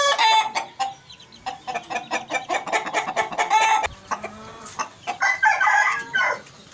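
Aseel chickens clucking and calling in a run of short calls, with a longer rooster call about five seconds in.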